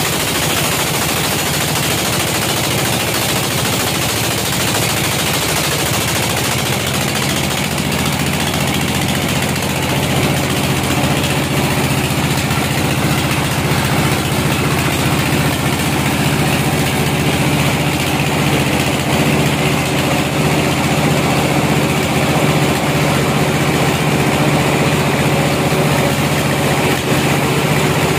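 Sawmill band saw running: a loud steady hiss over a low motor hum, with the hum growing stronger about ten seconds in.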